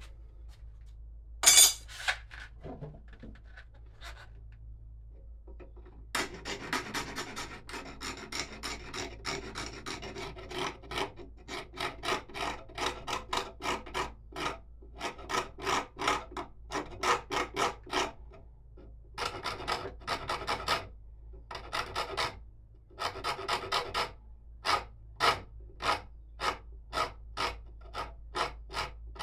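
A hand tool worked against wood in repeated scraping strokes, continuous at first and then about two strokes a second with short pauses. A single sharp knock, the loudest sound, comes about a second and a half in, before the strokes begin.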